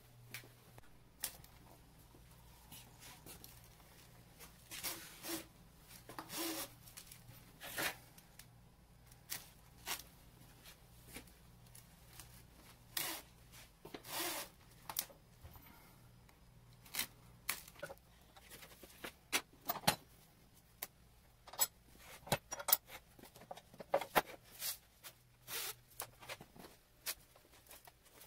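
Dry broomcorn straws rustling and scraping in irregular short strokes as a broom bundle is handled and bound with wire in a broom vise, over a faint steady low hum.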